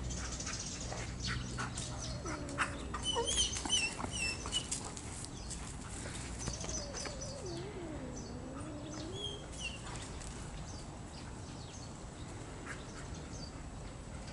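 Small birds chirping in quick wiggly notes, and twice a long, low, wavering animal whine that dips and rises in pitch. Light crunching clicks, as of steps in dry fallen leaves, are scattered throughout.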